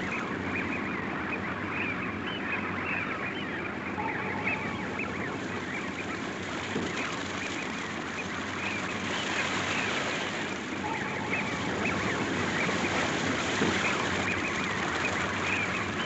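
A large flock of waterbirds calling, many overlapping calls forming a continuous clamour that grows a little louder in the second half.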